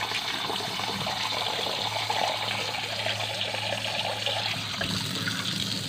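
Kitchen tap running steadily, its stream pouring into a glass vase over a stainless steel sink and filling it, with a faint steady low hum beneath.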